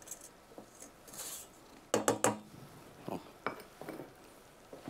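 Spatula scraping and knocking against a stainless-steel stand-mixer bowl, with a few sharp metallic clinks. The loudest clinks come as a quick pair about two seconds in.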